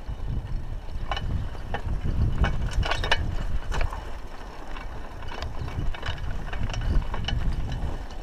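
Raleigh Ascent mountain bike rattling over a rough dirt track: irregular sharp clicks and clatter from the chain and frame over a steady low rumble of tyres and wind.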